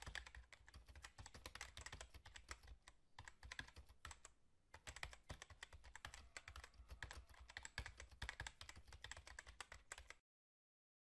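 Typing sound effect: rapid keyboard keystroke clicks in quick succession, with a brief pause partway through, stopping abruptly near the end.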